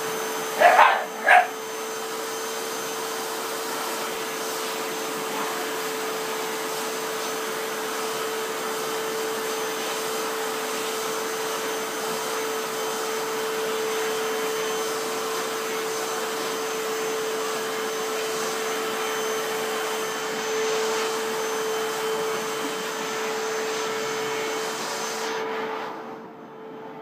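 Vacuum cleaner running steadily with a humming tone, a dog barking two or three times about a second in. The vacuum shuts off near the end.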